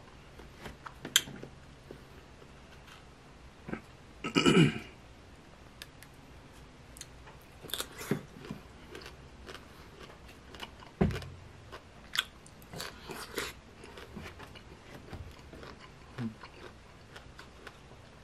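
Close-miked chewing of crisp sour green mango, with irregular crunchy bites and wet mouth sounds. A louder drawn-out mouth sound comes about four seconds in, and a single low thump near the middle.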